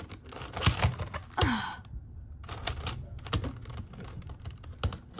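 Plastic Megaminx being turned rapidly by hand: a quick, irregular stream of clicks and clacks as its faces snap round. A short falling sigh comes about a second and a half in.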